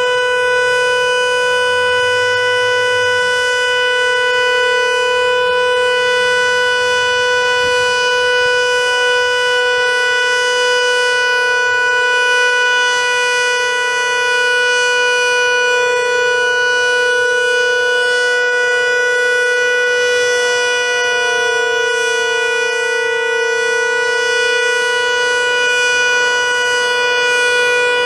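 Federal Signal Model 2 electromechanical outdoor warning siren sounding an alert: one loud, steady tone with many overtones, held at the same pitch without rising or falling.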